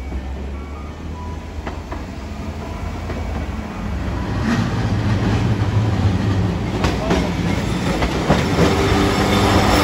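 Tosaden Kotsu streetcar No. 703 running in along street tracks and drawing up at a tram stop. It is a low rumble with a few clicks from the wheels, growing louder as it comes close, and a steady low hum in the second half.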